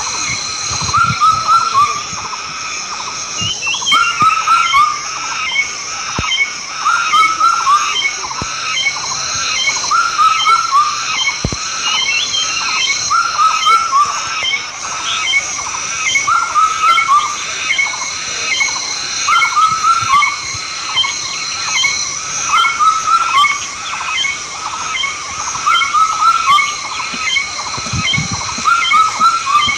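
Outdoor wildlife chorus: short chirping calls repeating in little phrases every couple of seconds, with quicker, higher chirps between them, over a steady high-pitched drone.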